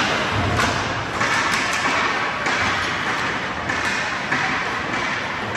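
Ice hockey play in a rink: skate blades scraping the ice in repeated strokes, with knocks and taps of sticks and puck.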